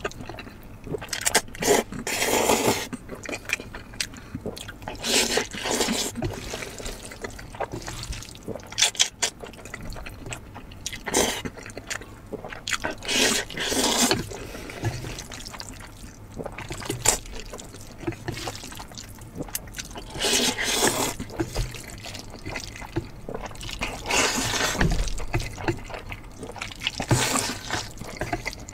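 A person slurping noodles up close: several long, wet slurps a few seconds apart, with short smacking chewing sounds between them.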